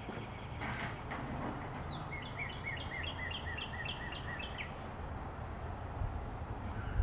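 Distant jet rumble from a Boeing 747-8 freighter's four turbofan engines passing high overhead, a steady low drone. A small bird sings over it: a quick run of about ten short, falling chirps between roughly two and four and a half seconds in.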